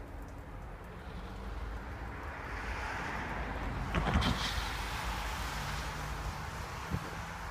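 Diesel freight locomotives running, with a steady low engine rumble and a rising hiss that swells through the middle, plus a brief clatter of knocks about four seconds in and a single knock near the end.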